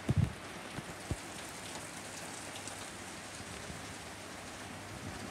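Steady rain falling, with a few dull thumps in the first second or so.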